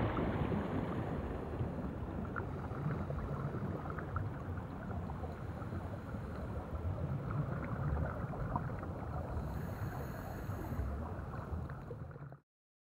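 A steady low rushing noise with scattered faint clicks, like a water ambience. It cuts off suddenly near the end.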